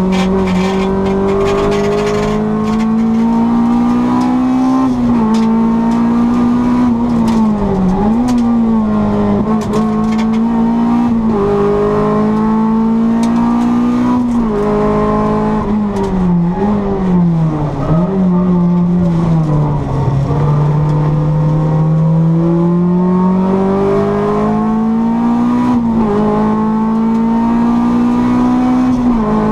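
Honda Civic 1600's four-cylinder engine driven hard on a race circuit, its pitch climbing under acceleration and dropping sharply at each gear change. About twenty seconds in it falls and holds low as the car slows, then builds again.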